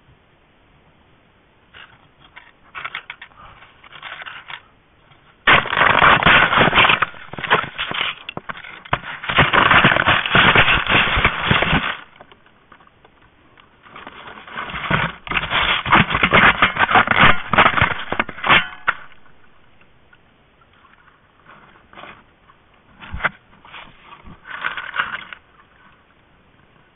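Black bear cub's fur and paws rubbing and scraping against the trail camera: loud scraping and crackling handling noise, in two long bursts of several seconds and a few shorter, fainter scrapes before and after.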